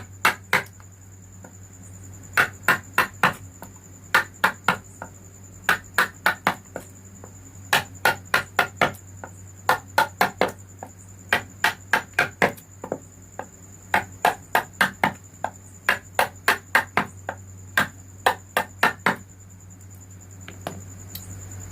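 Hammer strikes driving a carving chisel into wood: sharp taps in quick irregular clusters of two to five, which stop shortly before the end. A steady low hum and a faint high whine run underneath.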